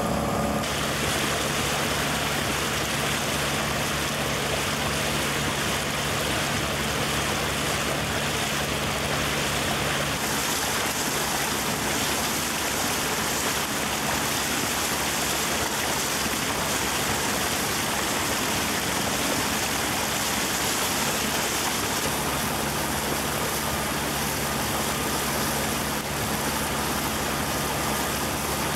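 A sailboat's auxiliary engine running steadily while motoring, a low drone under a steady hiss.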